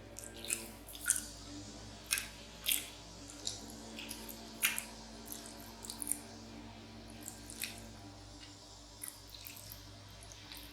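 Close-miked chewing of macaroni and cheese, with irregular short mouth clicks and lip smacks. Underneath, a lawn mower engine drones faintly and steadily.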